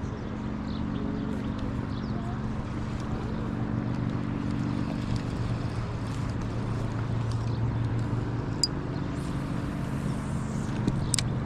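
Steady low hum of an engine running, with a couple of sharp ticks near the end.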